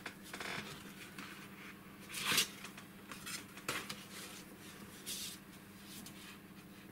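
Cardstock rustling and sliding on a cutting mat as it is handled, loudest about two seconds in and again about five seconds in, with a few light clicks of a metal ruler being set down on it.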